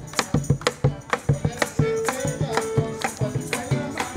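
Live folk music: a Venezuelan cuatro strummed in a steady rhythm with rattling percussion, and a melody of long held notes entering about two seconds in.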